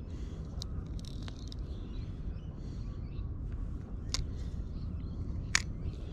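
Outdoor ambience: a steady low rumble with faint high chirps, likely distant birds, and a few sharp clicks, the loudest about five and a half seconds in.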